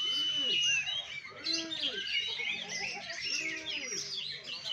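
Oriental magpie-robins (kacer) singing over one another in a dense tangle of whistles, trills and chirps. A long held whistle runs through the first second, and lower rising-and-falling notes come about once a second.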